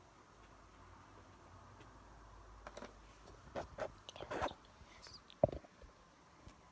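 Guinea pig chewing and moving about in its cage, a faint run of small crunching bursts and clicks with one sharper knock about five and a half seconds in.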